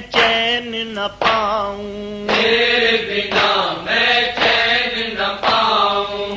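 Male voice chanting a noha, an Urdu mourning lament, in long drawn-out melodic phrases.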